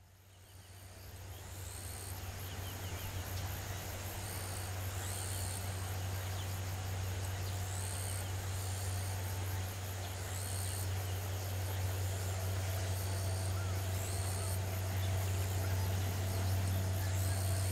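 Distant diesel railcar approaching slowly: a steady low engine drone that grows gradually louder. Short high calls repeat every second or two above it.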